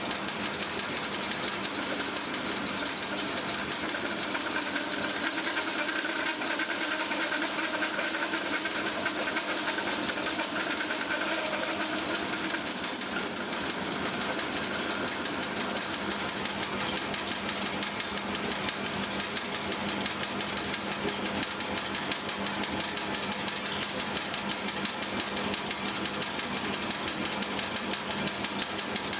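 Boxford metalworking lathe running, with a steady motor hum and its sheet-steel guards rattling hard the whole time. The pattern changes about twelve seconds in.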